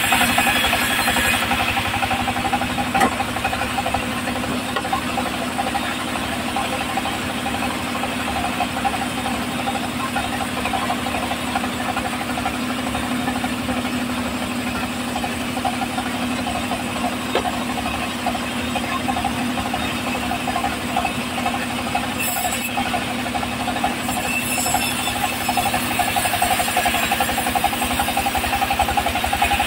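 Engine-driven homemade band sawmill running steadily as teak boards are fed through the blade, with a constant engine rumble and a rapid pulse.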